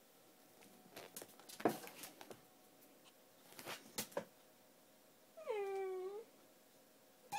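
Miniature dachshund puppy giving one short whine about five and a half seconds in, its pitch dropping and then holding. Before it come a few soft taps and one sharper knock, the loudest sound, a little under two seconds in.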